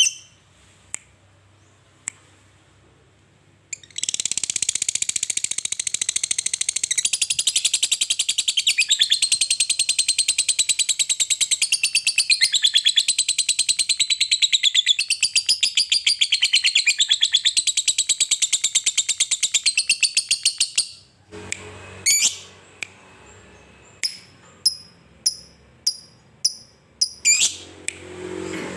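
Lovebird giving its long 'ngekek' chatter: after a few sharp chirps, a rapid, unbroken run of high-pitched trilled notes starts about four seconds in and lasts roughly seventeen seconds. It then breaks off into separate sharp chirps, about two a second.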